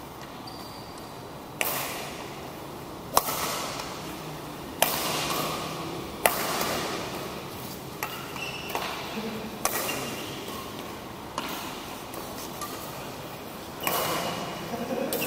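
Badminton rackets hitting a shuttlecock back and forth in a rally, a sharp crack about every one and a half seconds, each ringing on in a large echoing hall.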